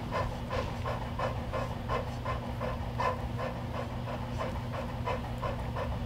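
Female Cane Corso panting in quick, regular breaths with her mouth open, while in labor between deliveries of her puppies.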